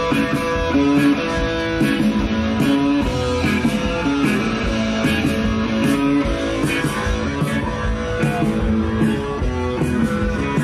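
Live rock band playing, led by electric guitars, over a steady beat.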